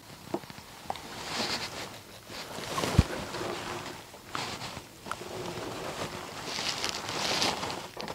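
Rustling and handling noises close to the microphone, coming in several short spells about a second long, with a few sharp clicks and one knock about three seconds in.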